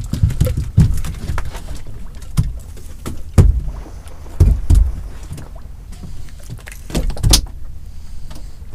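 A handful of irregular knocks and thumps aboard a small fishing boat, over a low steady rumble.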